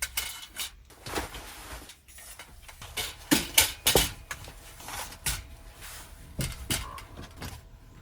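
Clicks, knocks and clatter of a metal curtain rod, held up by magnets, and its curtains being handled and fitted, with the loudest knocks about three to four seconds in.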